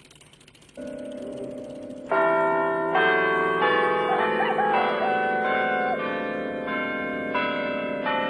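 A steady low hum begins about a second in. From about two seconds in, bells strike one after another, a new stroke roughly every three quarters of a second, each ringing on under the next.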